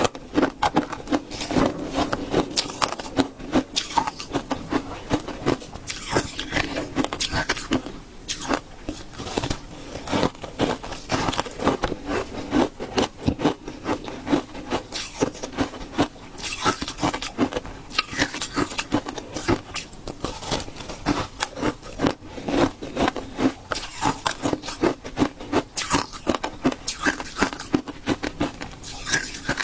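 Shaved ice being bitten and chewed: a steady stream of crisp crunches and cracks, several a second.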